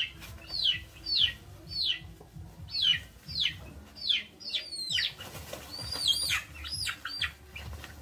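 Chicks peeping loudly and repeatedly, each peep falling in pitch, about two a second: the distress peeps of chicks being handled. About five seconds in there is a rustle, and the peeps turn faster and overlap.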